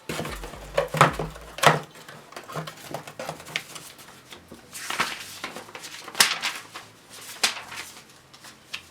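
Irregular clicks, knocks and light clatter of computer-case parts and cables being handled, with a few sharper knocks among them.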